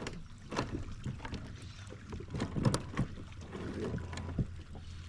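Irregular knocks and taps on a kayak on the water, over a low steady hum.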